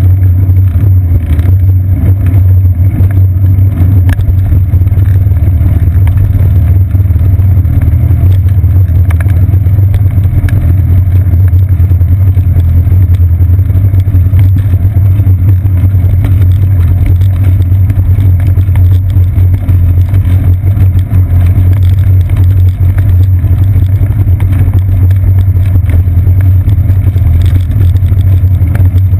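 Loud, steady low rumble of wind and ride vibration picked up by a seat-post-mounted GoPro Hero 2 in its housing while the bicycle rolls along.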